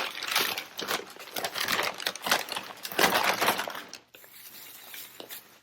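Wrapping being crinkled and crumpled by hand as a purchased item is unwrapped, in a run of rustling bursts for about four seconds, then fainter rustling near the end.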